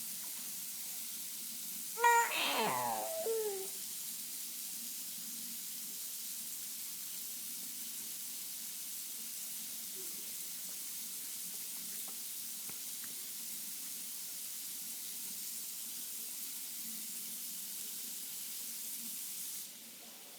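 A single high-pitched cry with a falling pitch about two seconds in, lasting under two seconds, over a steady hiss that stops just before the end.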